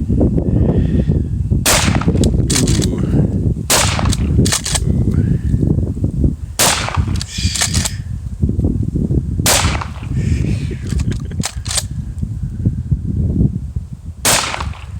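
A shotgun fired about five times at a slow pace, a few seconds between shots, with shorter sharp clacks between some of them, emptying the gun. A steady low rumble runs underneath.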